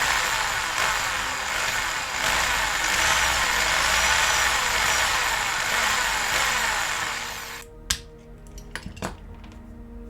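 Power drill running under load, drilling out the rivets of a die-cast metal toy car, its motor pitch wavering, until it stops about three-quarters of the way through. A few small metal clicks follow.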